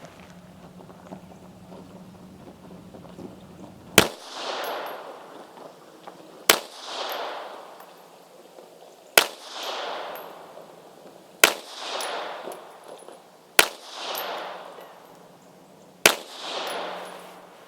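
Astra 300 pistol in .380 ACP firing six slow aimed shots, about two to two and a half seconds apart, each shot followed by an echo.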